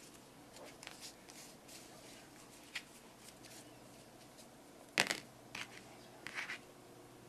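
Hands handling a crocheted amigurumi piece and its yarn while sewing: faint rustling with a few short sharp clicks, the loudest about five seconds in and a small cluster just after six seconds.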